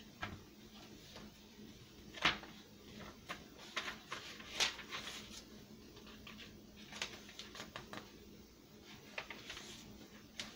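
Paper and card pages of a handmade junk journal being turned and handled by hand: faint rustles and light taps, the sharpest about two and four and a half seconds in.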